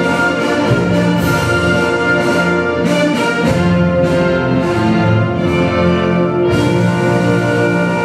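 Orchestral music with brass playing steadily: the instrumental music played under the flag salute of a Korean national ceremony (국민의례).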